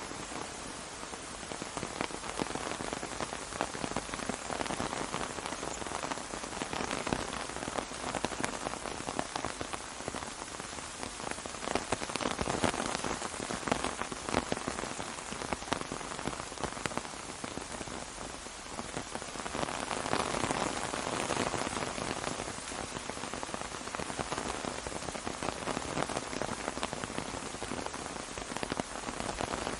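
Steady rain pattering on an umbrella, with many separate drop ticks over a dense hiss. It grows louder for a few seconds around the middle and again about two-thirds of the way through.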